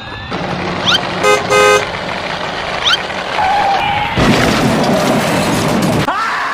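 Cartoon-style sound effects over toy vehicles: short chirps, two quick horn toots a little over a second in, then a rushing noise, and right at the end a rising scream begins.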